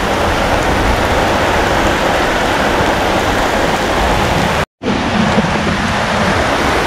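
Heavy rain falling on a sandy beach, a loud, steady hiss. It cuts out for a moment about two-thirds of the way through, and a similar steady noise follows.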